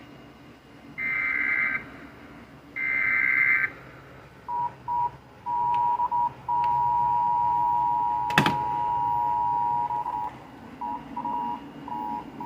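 Emergency Alert System broadcast tones: two short buzzy bursts of the SAME digital header, then the two-tone EAS attention signal, a steady dual-pitch beep that cuts in and out several times before holding for several seconds. A sharp click sounds partway through the long tone.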